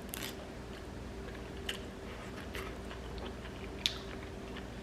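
Close-miked chewing of a mouthful of spicy ramen and enoki mushrooms, with scattered wet mouth clicks. The loudest click comes a little under four seconds in.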